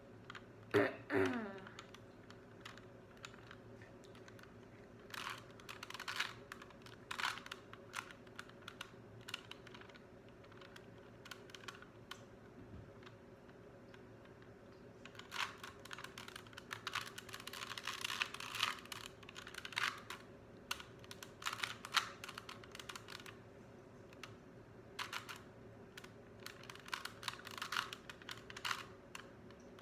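Layers of a plastic 3x3 Rubik's Cube being turned by hand: runs of quick clicking, scattered at first and busiest in the second half. A short voice sound about a second in.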